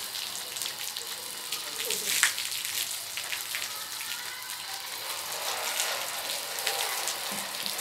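Water jetting from a garden hose and pattering across the glass faces of solar panels: a steady spray hiss with scattered splashes.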